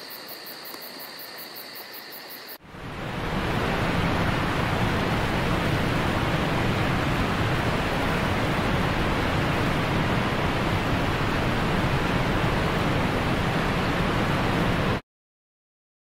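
Water spilling over a low concrete weir: a steady rush that comes in about two and a half seconds in and cuts off suddenly near the end.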